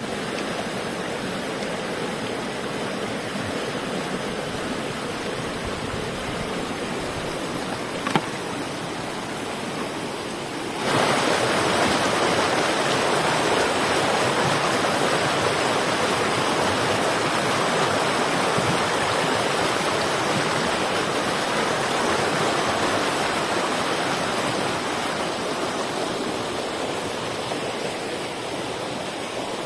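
Fast-flowing stream rushing over rocks, a steady wash of water that becomes louder and brighter about eleven seconds in. A single sharp click sounds near eight seconds.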